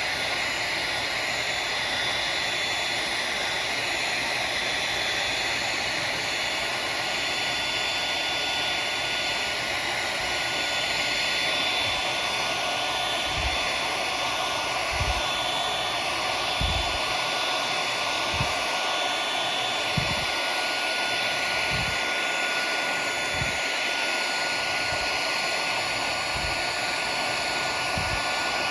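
Electric heat gun blowing steadily, heating heat-shrink tubing on a phone charging cord. The whoosh holds a constant pitch with a faint steady whine, and a few soft low thumps come in from about halfway.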